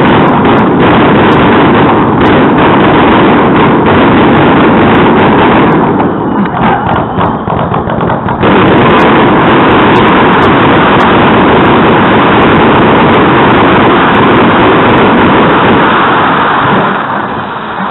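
Fireworks display: a very loud, continuous barrage of bangs and crackling from ground fountains and aerial shells. It thins out briefly about six seconds in, returns to full intensity, and eases off just before the end.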